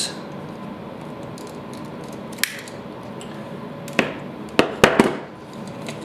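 Needle-nose pliers working the break-off tab between a duplex outlet's brass terminal screws back and forth until it snaps off. The result is a few sharp metallic clicks: one about two and a half seconds in and a quick cluster a little after four seconds.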